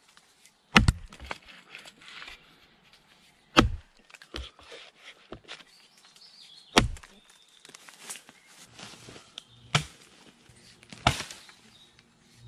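Axe blows chopping into a felled log: five sharp chops, roughly every two to three seconds, with lighter knocks between them.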